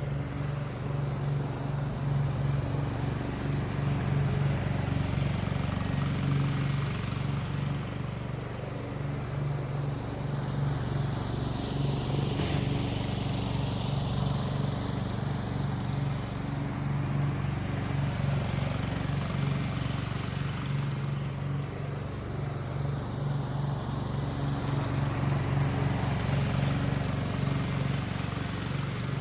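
Husqvarna Rider 13 riding mower's engine running steadily at an even speed while the mower is driven over a lawn, the sound swelling and easing slightly as it moves.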